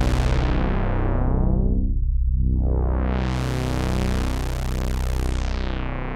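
Sequential Prophet-10 analog polysynth sustaining a low chord while its resonant low-pass filter is swept by hand. The sound darkens over the first two seconds, opens back up to full brightness around the middle, and closes down again near the end.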